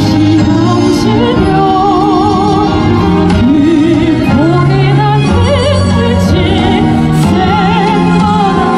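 A woman singing with a strong vibrato into a handheld microphone, amplified through stage loudspeakers over an instrumental backing with steady bass notes.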